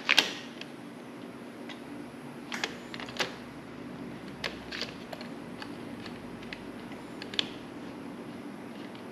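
Hard plastic frame guard, bolt and hand tool being handled against a dirt bike's frame: scattered light clicks and knocks, the sharpest right at the start, over a steady low hum.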